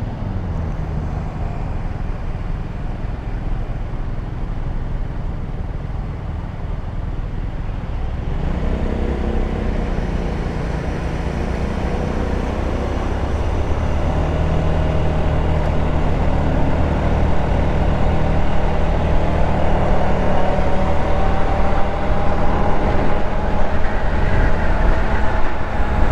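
150cc GY6 single-cylinder four-stroke scooter engine running under way, with a steady rumble of engine and road noise. From about eight seconds in, its pitch rises slowly and it grows louder as the scooter picks up speed.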